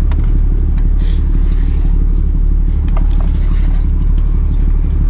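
A fishing trawler's inboard diesel engine running steadily, a loud, even low drone, with a few faint taps over it.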